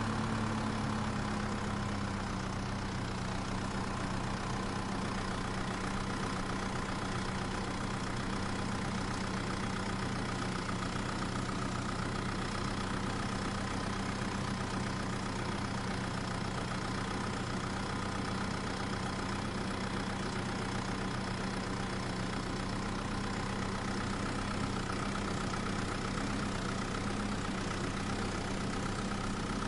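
Small motor running steadily with a low, even hum. Its pitch settles slightly lower in the first couple of seconds.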